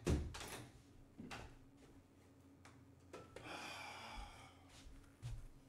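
A knock at the start and a few faint clicks, then about three and a half seconds in a breathy sigh lasting about a second.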